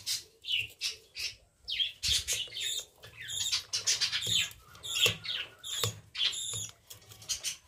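Birds chirping and squawking in quick, repeated short calls, some sliding down in pitch.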